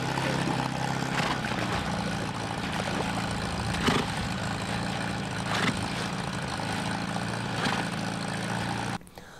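A boat's motor runs steadily as a low hum, with water churning and splashing around the hull. The sound cuts off abruptly near the end.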